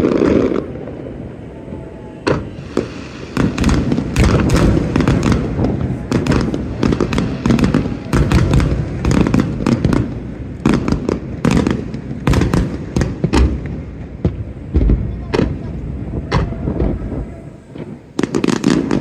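Fireworks display: aerial shells bursting in a rapid barrage of booms and sharp crackles, sparser at first and dense from about three seconds in.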